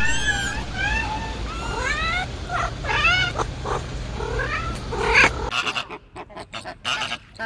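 Several animals giving short, high cries in quick succession, each rising then falling in pitch, some overlapping. A little over five seconds in, the sound cuts to scattered clicks and rustling.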